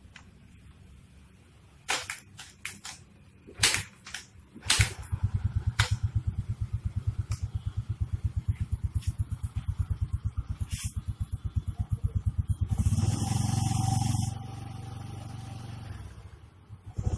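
Yamaha Xeon GT125 scooter's single-cylinder fuel-injected engine idling with a steady rapid pulse, after a few knocks and clicks, then blipped louder for a moment about three-quarters of the way in before settling again; a test run after a fuel filter change.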